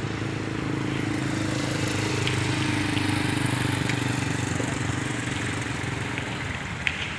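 Steady hum of a motor vehicle engine with road noise, its pitch drifting slightly about two seconds in.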